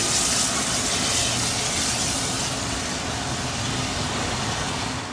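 Ol49 steam locomotive giving off a steady hiss of steam as it pulls away, slowly fading.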